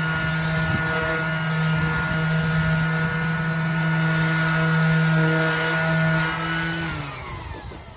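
Bauer 20 V cordless 5-inch random orbital sander running on a board under light hand pressure: a steady motor hum with sanding hiss. Near the end its pitch falls and it winds down.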